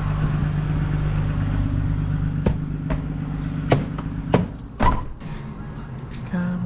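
Truck engine idling on a cold start after sitting a week in deep cold. Several sharp knocks come from about two and a half seconds in, with a louder thump near five seconds, as the engine hum drops back.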